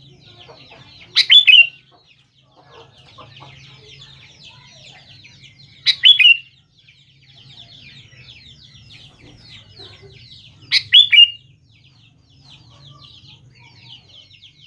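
Sooty-headed bulbul (kutilang) calling: three loud, short whistled phrases about five seconds apart, over a constant faint, rapid high twittering.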